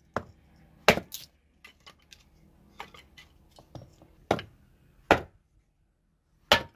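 Hatchet splitting firewood into kindling: a handful of sharp chops of the blade into the wood at uneven intervals, with lighter knocks and taps between.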